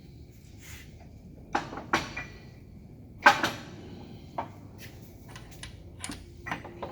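Irregular sharp metal knocks and clanks, some with a short ring, about ten in all and the loudest about three seconds in, as the heavy countershaft and gears of an Eaton Fuller FRO16210C truck transmission are worked into position in the case.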